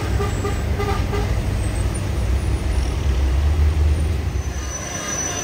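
Heavy truck engine passing with a deep rumble that builds to its loudest about three to four seconds in and then falls away near the end. A run of short horn toots sounds in the first second.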